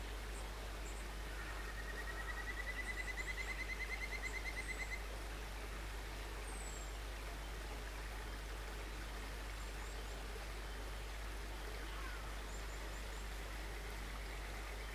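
A bird's rapid, slightly rising trill lasting about three seconds, starting a second or two in, with short high chirps scattered throughout over steady outdoor background noise.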